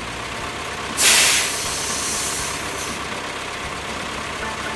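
Heavy truck's diesel engine idling steadily, with a loud hiss of air brakes about a second in that fades away over the next second or two.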